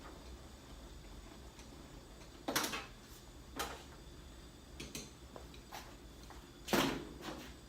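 Knocks and clatter of cold air intake parts being handled and fitted: two louder clunks, one about two and a half seconds in and one near the end, among lighter taps.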